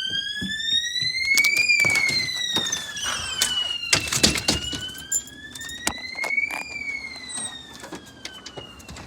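Fire alarm sounding after being pulled: a wailing tone that rises and falls slowly, about two and a half seconds up and two and a half down. Several knocks and bangs sound over it, the loudest about four seconds in. The alarm grows fainter toward the end.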